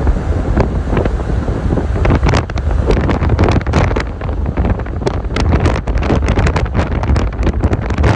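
Wind buffeting the microphone: a heavy low rumble, with rapid, irregular crackling gusts from about two seconds in.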